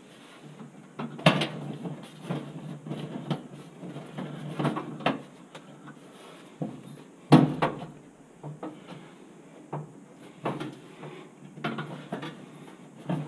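Irregular metallic clicks and knocks of a hand screwdriver and screws against the sheet-metal oven floor as the gas oven's bake burner is screwed back in place. The sharpest knocks come about a second in and about seven seconds in.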